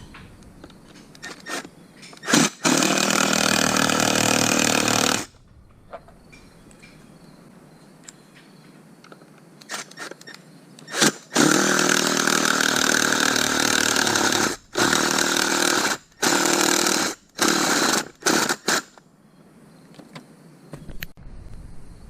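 Power driver running screws into a chainsaw's wrap handle, in a few long runs and then several short bursts, with light clicks of handling between.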